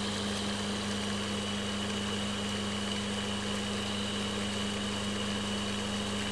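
Homemade pulse motor with a fan on its rotor running steadily at about 1500 RPM: an even hum with a faint high whine over it.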